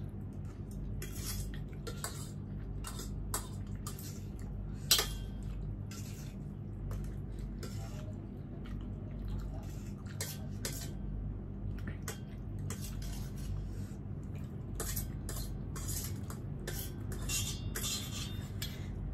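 Cutlery clinking and scraping against bowls in irregular taps as spicy ramen noodles are eaten, with one sharper, louder clink about five seconds in, over a steady low hum.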